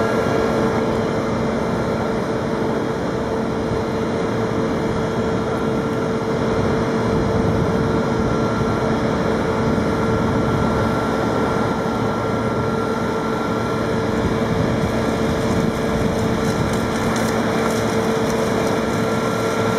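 A vehicle engine running steadily with a constant whine, from the machinery moving the new tram slowly along the track.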